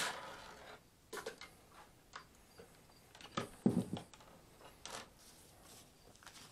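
Handling noises: a paper towel rustling as old grease is wiped off a Dremel flex shaft's steel inner cable, then scattered light clicks and rustles, and a dull knock about three and a half seconds in as the Dremel rotary tool is set down on a wooden workbench.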